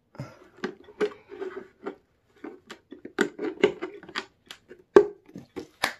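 Hands handling a clear plastic enclosure, with irregular light taps, clicks and scrapes of plastic and a sharper knock about five seconds in.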